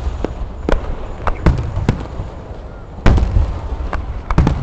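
Fireworks going off at a show: a string of sharp cracks, then a deep boom with a rumbling tail about three seconds in, and a quick cluster of cracks near the end.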